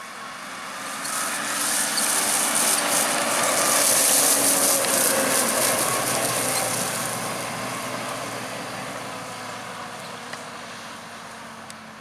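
JCB 542-70 Agri Xtra telehandler's engine running as it drives past, growing louder to a peak about four seconds in and then slowly fading.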